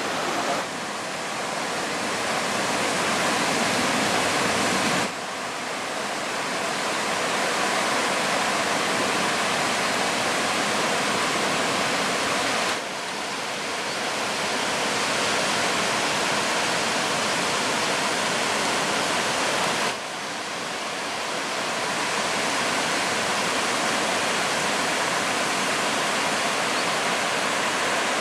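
Steady roar of ocean surf breaking on the beach, a dense rushing noise that drops suddenly three times and swells back up over a few seconds.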